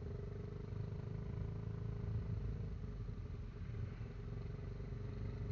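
Kymco Xciting 400i maxi-scooter's engine running while riding, heard from the rider's seat as a steady low hum with a faint steady whine above it.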